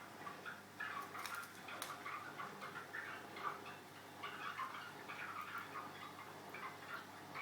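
Border canary twittering softly in short, irregular chirps, with a few sharp clicks among them.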